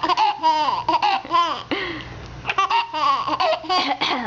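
Baby laughing in runs of quick, rising and falling pulses, with a short break a little under halfway through.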